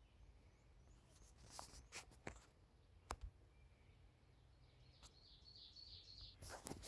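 Near silence, with a few faint ticks and, near the end, a faint high bird call wavering for about a second and a half.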